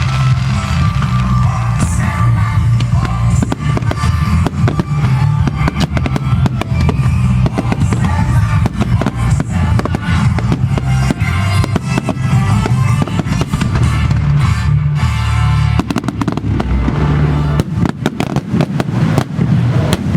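Dense barrage of fireworks: rapid bursts and crackling over continuous low booms, with no break.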